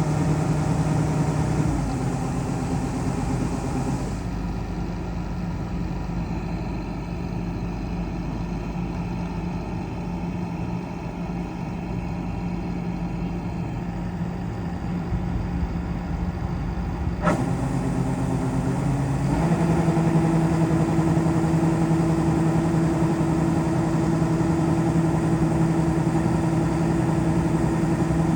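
Rice combine harvester's engine running steadily while it unloads grain into a truck, its note shifting a few times. A sharp click comes about seventeen seconds in, and from about nineteen seconds the engine runs higher and louder.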